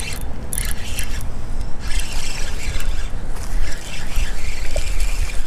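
Spinning reel being cranked as a hooked bass is reeled in toward the bank, under heavy wind noise on the microphone.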